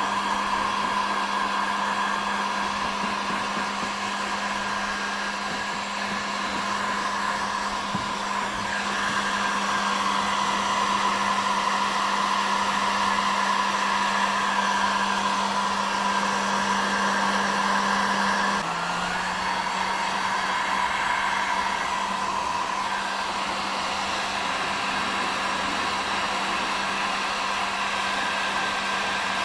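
Heat gun running steadily, blowing hot air to soften plastic for welding a patch onto a kayak hull. Its motor hum drops slightly in pitch about two-thirds of the way through.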